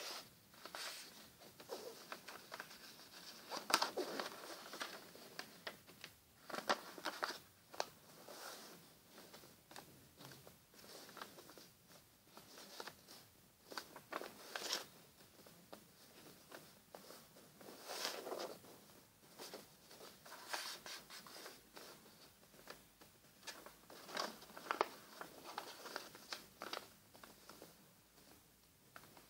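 A sheet of paper rustling and crinkling as hands fold it and press the creases flat, in short irregular bursts with a few sharper crackles.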